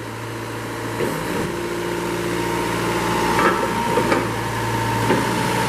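Kubota V2003 four-cylinder turbo diesel of a Moffett M55P truck-mounted forklift running steadily while its hydraulics work the mast and reach. About a second in the engine note changes and grows gradually louder as the hydraulic load comes on, with a couple of faint knocks around the middle and a thin whine rising toward the end.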